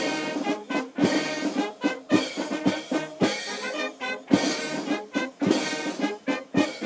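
Brass band playing, trumpets and trombones over sharp drum beats.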